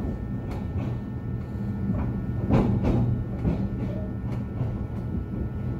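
Train running, heard from inside the passenger carriage: a steady low rumble with the wheels clacking over rail joints several times at irregular spacing.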